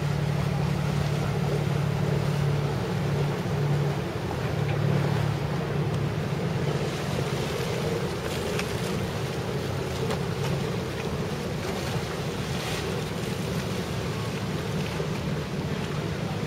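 Wind buffeting the microphone over choppy water, with a low steady boat-engine drone underneath, a little stronger in the first few seconds.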